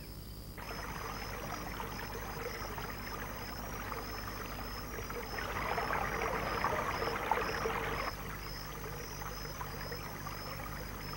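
Water rushing over a shallow, rocky river rapid, louder for a few seconds midway, with a high chirp repeating evenly in the background.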